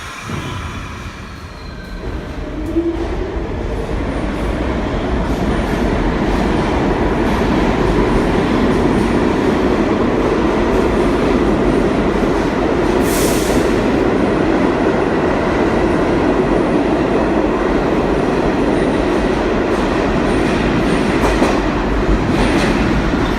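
R160 subway train pulling out of the station, its wheels and motors growing louder over the first few seconds and then running steadily as the cars pass the platform. A brief high hiss comes about halfway through.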